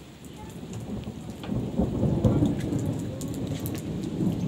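Steady rain falling, with scattered drop ticks over a heavy low rumble that builds over the first two seconds and stays loud.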